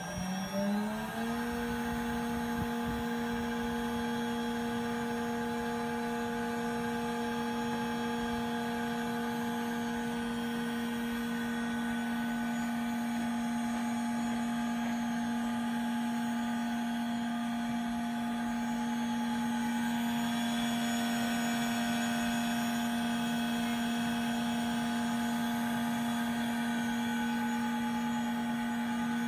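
Latex mechanical stability tester's high-speed stirrer motor finishing its run-up with a rising whine that levels off about a second in, then running steadily at 14,000 rpm, the standard test speed, with an even, steady whine.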